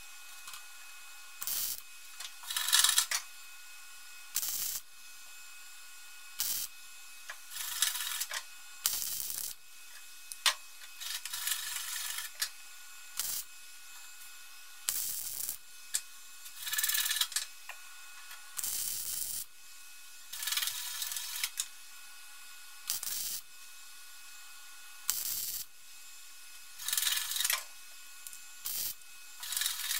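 Wire-feed MIG welder stitching a patch into a car's steel sill panel: about fifteen short bursts of arc crackle, each under a second, starting and stopping every second or two. A faint steady hum runs underneath between the bursts.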